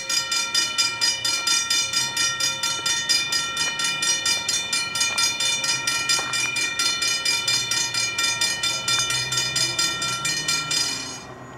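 Safetran hybrid mechanical railroad crossing bell ringing in rapid, even strikes, several a second, then stopping abruptly near the end as the crossing signal deactivates.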